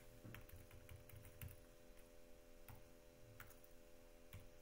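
Faint computer keyboard keystrokes, a few scattered irregular clicks as a word is typed, over a faint steady electrical hum.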